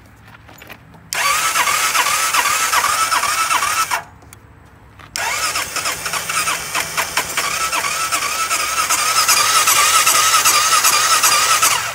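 Electric starter cranking a Honda Helix 250 scooter's single-cylinder engine in two tries, about three seconds and then about seven seconds, with a regular pulsing as it turns over, without catching. The engine has dish soap for oil and WD-40 in the intake, and the owner suspects it is ruined.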